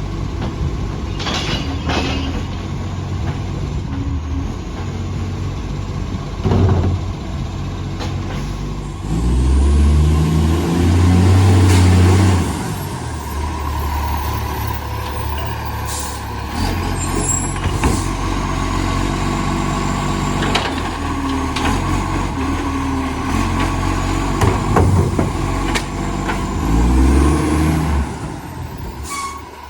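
Side-loader garbage truck's diesel engine running and revving hard, loudest about a third of the way in and again near the end, with a massive exhaust leak; a few sharp knocks in between.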